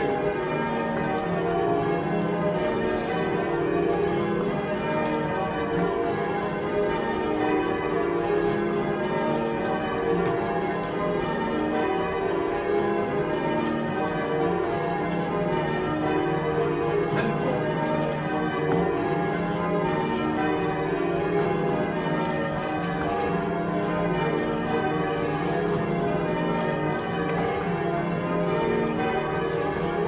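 Many bells ringing at once in quick, overlapping sequences, a dense peal with no break.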